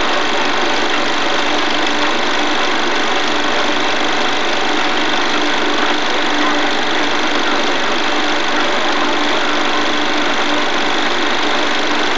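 Film projector running steadily: a loud, even mechanical running noise with a low hum.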